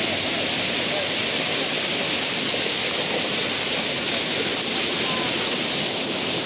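Steady, loud wash of sea surf in shallow water on a sandy beach.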